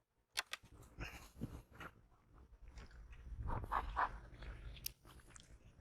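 Faint, scattered knocks, scrapes and crunching from a wooden beehive's lid and frames being handled.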